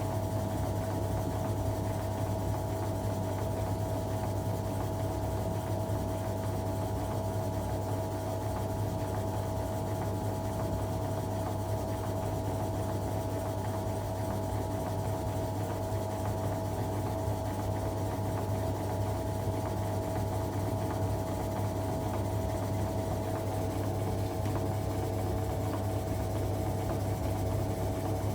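Automatic washing machine running steadily: an even motor hum with a constant tone over it, unchanging throughout.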